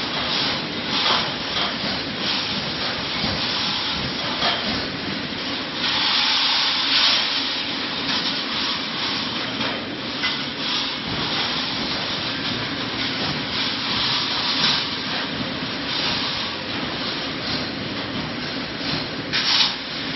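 Reinforcing mesh welding machine running: steady mechanical noise under a low hum, broken by repeated bursts of hissing, the longest about six seconds in and a sharp one near the end.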